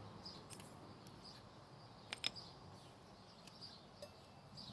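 Quiet background with faint, short bird chirps recurring, and two light clicks about two seconds in.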